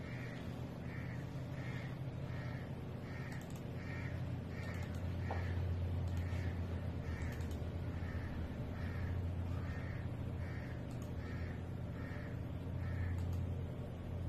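A crow cawing over and over, about one call a second, falling silent about a second before the end. Under it runs a steady low electrical hum from the amplifier's speakers, which have just been switched to line-in mode.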